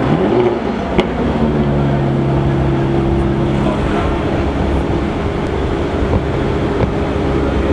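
Jaguar F-Type sports car engines idling in a queue, a steady low hum with several held tones. A sharp click about a second in.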